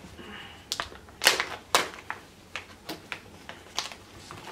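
Plastic dog-treat pouch crinkling and crackling as it is handled and pulled open by hand: a run of irregular sharp crackles, loudest a little over a second in.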